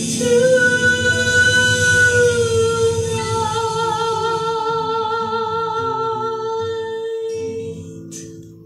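A woman singing one long held note with vibrato into a handheld microphone over musical accompaniment. Near the end the note and the accompaniment fade away.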